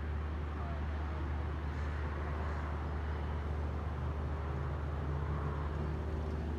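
Steady low drone of a running vehicle engine under a constant rushing noise.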